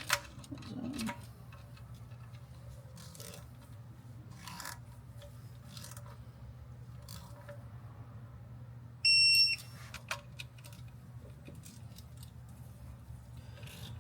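Snap-on 1/4-inch torque wrench giving one short, high beep about nine seconds in, signalling that an oil pan bolt has reached the set 8 N·m. Light scattered clicks of the wrench on the bolts around it.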